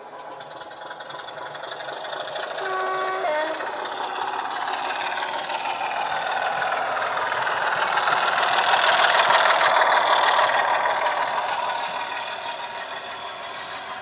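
Model Class 25 diesel locomotive running with a DCC sound decoder through a small speaker: a short two-note horn, high then low, about three seconds in, then the diesel engine sound and the wheels on the track grow louder as it passes close by and fade near the end.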